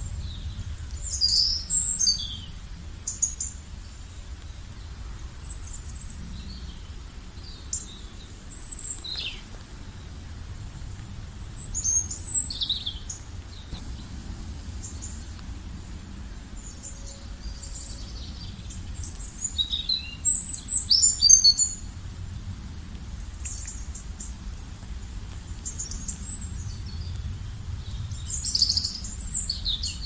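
Small birds chirping and calling, short high-pitched notes and quick whistled phrases scattered throughout, with several louder flurries, over a steady low background rumble.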